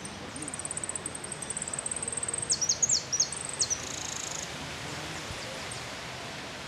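Jilguero finch singing: a fast run of high, evenly repeated notes, then a few sharp falling notes and a short buzzy trill, over a steady outdoor hiss.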